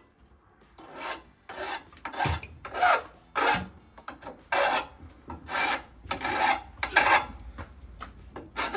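Hand file rasping back and forth over a cut edge of sheet steel, about ten scraping strokes roughly two a second, with a brief pause about four seconds in.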